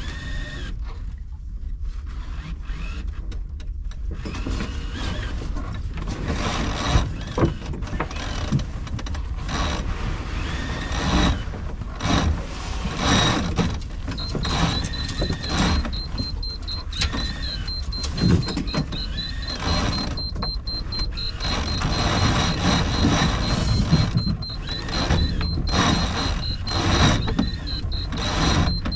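Sailboat sheet winch ticking quickly and steadily from about halfway through as the jib sheet is hauled in by hand to trim the headsail after a tack. Wind buffets the microphone throughout, with scattered knocks of lines and gear.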